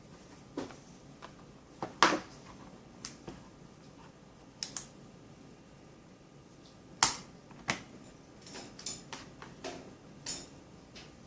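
Scattered clicks and taps of hands opening and handling a phone's cardboard box and packaging, with two sharper, louder clicks about two seconds in and about seven seconds in and a run of lighter taps near the end.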